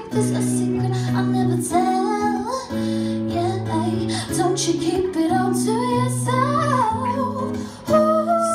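Live acoustic pop performance: a woman's lead voice singing runs that slide up and down over held chords, with acoustic guitar accompaniment.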